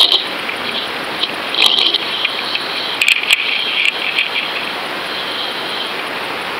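Water rushing and splashing around a line-mounted action camera's waterproof housing as it is towed through the surface beside a hooked shark. It makes a steady hiss, with brighter swells of spray and scattered small clicks and taps on the housing.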